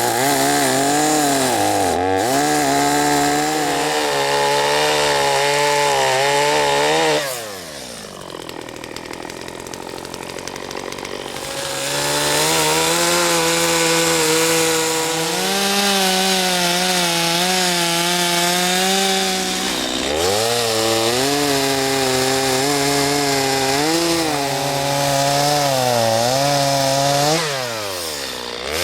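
Chainsaw cutting into a white oak stump at high revs, its pitch wavering as the chain bites and bogs in the wood. About seven seconds in it drops to idle for several seconds, then revs back up and cuts again, dropping off once more near the end.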